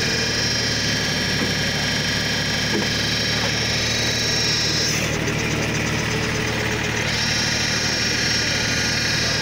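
Engine running steadily and driving the hydraulic pump of a wood splitter, a steady low hum with a high whine over it. The whine gives way to a rougher hiss for about two seconds around the middle, then returns.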